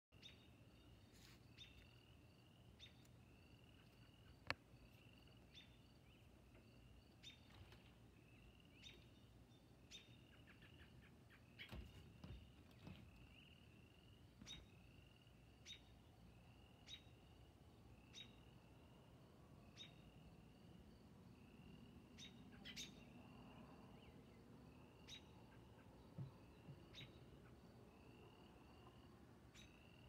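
Faint night calling: one short, high call note repeated steadily about every second and a half, over a faint continuous high pulsing trill.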